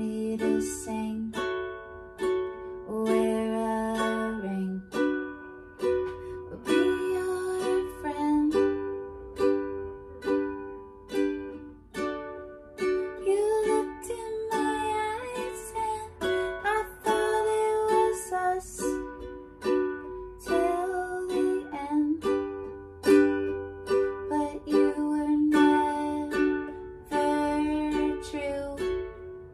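Ukulele strummed in a steady rhythm, the chords changing every second or two.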